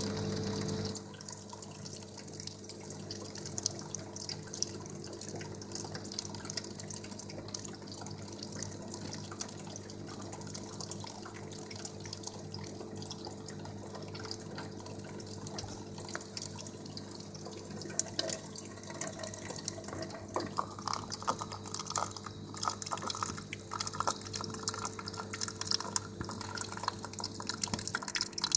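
Coffee vending machine dispensing: a pouring stream ends about a second in, then the nozzles drip steadily onto the grate and cup over the machine's steady hum, which cuts off near the end.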